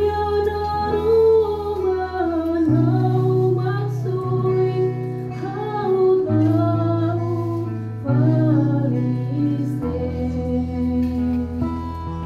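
A woman singing a responsorial psalm in Tetum, a slow wavering melody over instrumental accompaniment with long held bass notes that change every few seconds.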